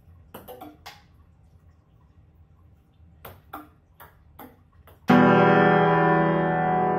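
A plastic ping-pong ball clicking as it bounces off hard surfaces: three light clicks under a second in and five more spread between about three and five seconds in. About five seconds in, loud keyboard music with held notes starts suddenly.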